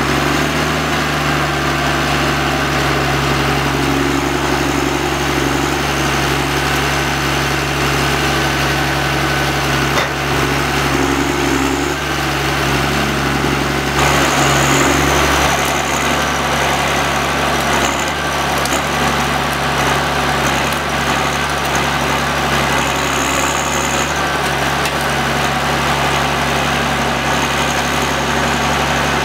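John Deere 1110D forwarder's six-cylinder diesel engine running steadily, a deep hum that gets briefly louder about halfway through.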